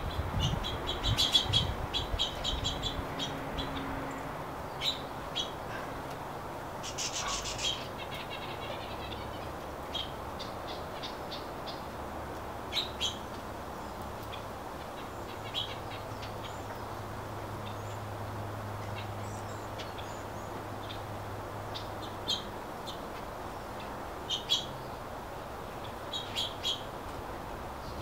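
Small songbirds chirping and calling in short high notes and quick trills. The calls come thickly in the first eight seconds, then as scattered single chirps.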